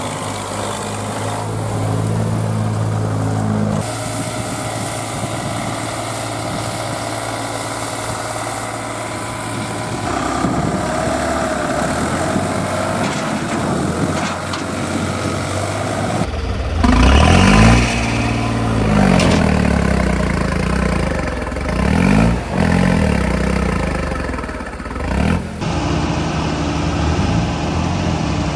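Diesel tractor engine working under load while stuck in deep mud. In the second half it revs up and falls back several times as the throttle is worked to pull free.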